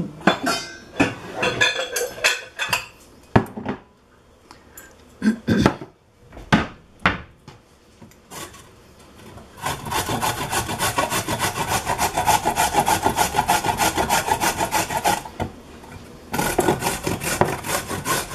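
Eggs being beaten in a stainless steel mixing bowl: quick, even scraping strokes, several a second, from about ten seconds in, with a short pause near the end. Before that come a few separate sharp knocks and clinks of the eggs being cracked into the bowl.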